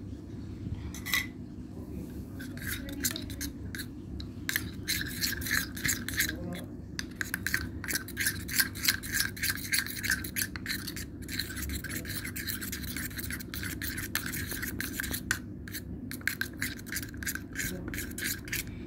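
Metal spoon scraping and stirring against the sides of a steel tumbler, working a thick glue, paint and detergent mixture into slime. The scrapes come quickly, several a second, and start a couple of seconds in.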